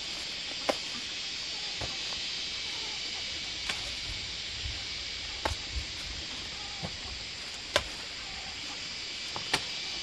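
A steady insect drone, with about six sharp snaps scattered through it as sunflower heads are harvested from their stalks.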